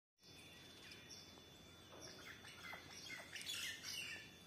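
Small birds chirping and calling, faintly, in short repeated notes and quick falling calls that come thickest about three to four seconds in.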